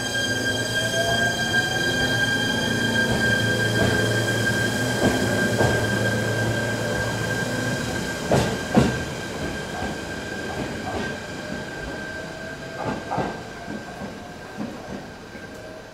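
Shinano Railway SR1 series electric train pulling out of a station and accelerating away: a steady high electric whine with a motor tone rising in pitch, a couple of wheel clacks over rail joints about eight seconds in, then fading as it draws off.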